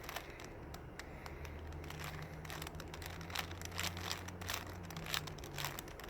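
Plastic Rubik's cube layers being twisted in quick, irregular turns, a run of small clicks and rattles.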